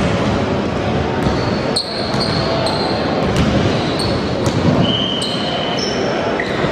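Basketball game sounds on a hardwood court: several short high sneaker squeaks and a basketball bouncing, over the steady din of the hall.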